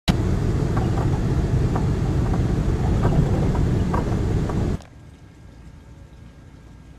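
Steady loud rumble and rush of a moving car heard from inside the cabin: road and engine noise, with a few faint ticks. It cuts off suddenly about five seconds in, leaving a much quieter background hiss with faint clicks.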